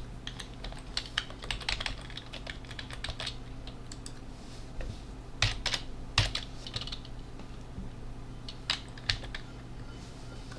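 Typing on a computer keyboard: irregular keystrokes, quick runs in the first few seconds and then sparser single strokes, a few of them louder. A steady low hum runs underneath.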